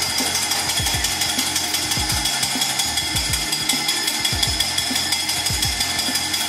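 Wire balloon whisk beating egg whites by hand in a glass bowl: a rapid, steady clatter of the wires against the glass. The whites are just starting to be whipped for meringue.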